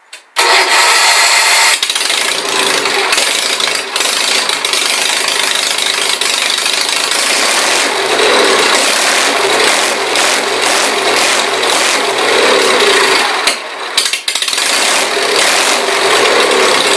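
Sears SS16 garden tractor's twin-cylinder engine, fitted with dual straight side pipes off the header, catching on a warm start about half a second in and then running loud. It is revved up three times, with a brief drop near the end.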